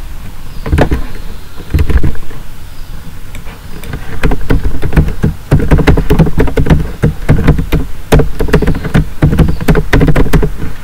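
Computer keyboard keys clicking in quick, uneven runs as a web address is typed. A few separate clicks come in the first two seconds, and the typing gets dense from about four seconds in.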